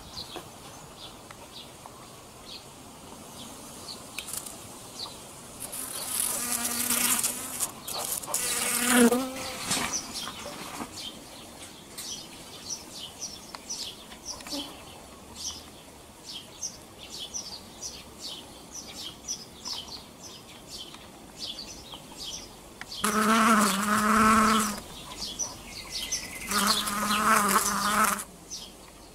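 Honeybees buzzing close by as they work a flower, their wings giving a steady-pitched hum that comes and goes in four spells, the longest two near the end. Faint short high chirps repeat in the background throughout.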